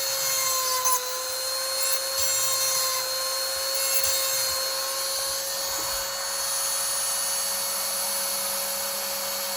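Electric chainsaw sharpener running at its highest speed setting: a steady motor whine, with the grinding stone rasping against the chain's cutters.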